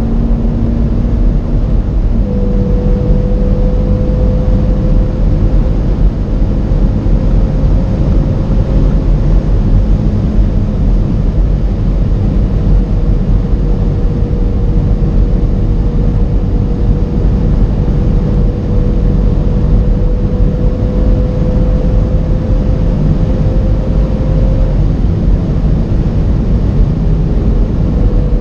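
In-cabin sound of a tuned Audi RS3 8V's turbocharged five-cylinder engine pulling hard in sixth gear at around 270 km/h, under heavy wind and tyre roar. A thin engine tone climbs slowly as the car gains speed, drops out about three seconds before the end, and comes back right at the end.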